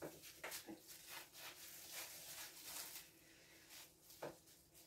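Near silence over a faint steady hum, with a few faint short clicks and light handling noises, one sharper click about four seconds in.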